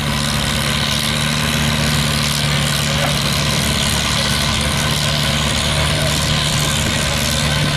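Antique Farmall tractor's engine running steadily as it drags a weight-transfer sled down a pulling track, one even engine note with no revving up or down.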